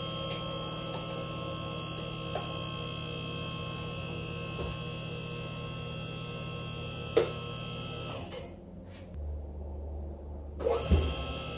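Electric hydraulic pump of a BendPak MaxJax car lift running with a steady hum as it raises a car, with a few faint clicks. About eight seconds in the sound changes abruptly to a deeper steady hum, with a knock near the end.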